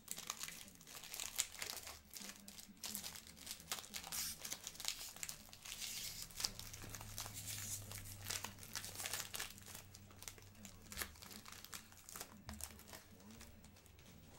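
Foil wrapper of a trading-card pack crinkling and tearing as hands pull it open: a dense run of sharp crackles that thins out near the end.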